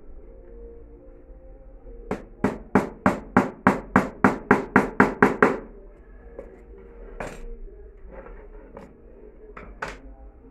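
Claw hammer driving a nail into a wooden board: a quick run of about a dozen evenly spaced blows lasting some three seconds, then a couple of single knocks.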